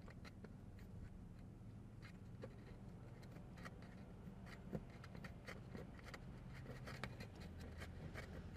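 Faint, irregular small metal clicks and scrapes as mounting bolts are fitted by hand into the bottom of a diesel bunk heater, over a low steady hum.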